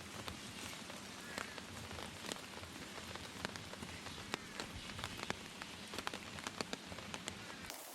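Steady rain falling, with many separate drops striking in sharp ticks over the hiss of the downpour.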